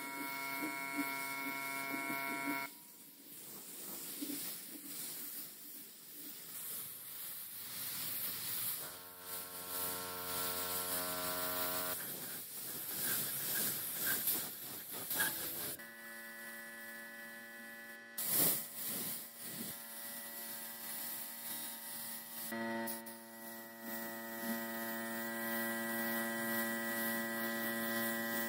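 Paint sprayer's motor humming steadily while spraying, with a hiss of spray. The hum cuts in and out several times and comes back at a different pitch, with a brief knock about 18 seconds in.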